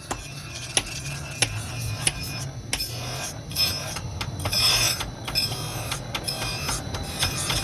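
Hand sharpening of a high-carbon steel knife blade: scraping strokes of steel on an abrasive, with sharp metallic clicks and one longer rasping stroke about four and a half seconds in.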